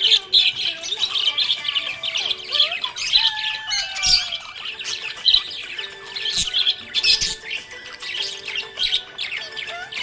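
Budgies chirping and warbling in a rapid, unbroken stream of short chirps, with a few drawn-out whistled notes that slide in pitch.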